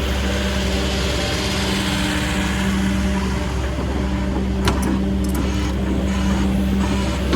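Cat 308CR midi excavator's diesel engine running steadily, with a few sharp clicks or knocks about halfway through.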